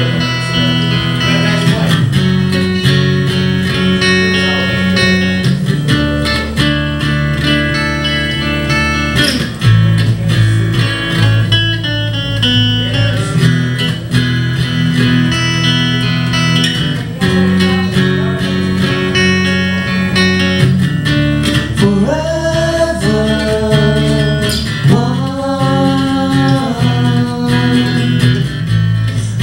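Live acoustic band music: strummed acoustic guitar over a steady bass line, playing a passage without lyrics.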